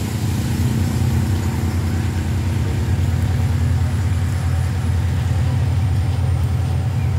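Diesel-electric locomotive's engine giving a steady, deep rumbling drone as the train approaches along the line.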